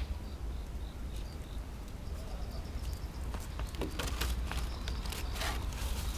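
Plastic colour sorting machine running with a steady low hum and a faint high tone, with a handful of short clicks and hisses between about three and a half and five and a half seconds in.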